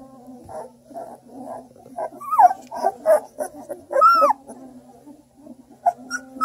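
Two-week-old bluetick coonhound puppies whimpering and squeaking. Short squeaks come thicker from about two seconds in, and one longer whine rises and falls in pitch around the middle.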